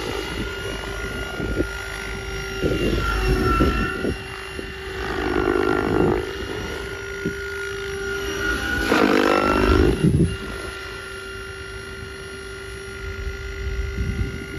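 SAB Goblin Mavraken 800 electric RC helicopter flying: a steady motor whine and main-rotor blade noise that swells and bends in pitch three times as it makes passes, loudest about two-thirds of the way through.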